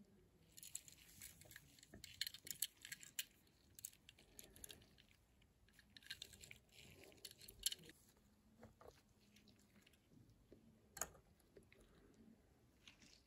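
Faint rustling and small clicks of gloved fingers handling a small die-cast metal toy car, in two spells of a few seconds each, then one sharper click about eleven seconds in as the car is set down on a kitchen scale's metal pan.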